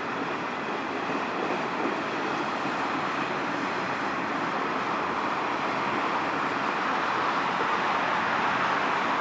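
Canadian Pacific freight train's autorack cars rolling past, a steady rumble and hiss of steel wheels on the rails that grows slightly louder toward the end.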